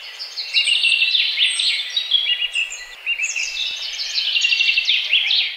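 A chorus of songbirds singing over one another: many quick chirps, trills and short downward-sliding whistles, over a faint background hiss, fading out at the end.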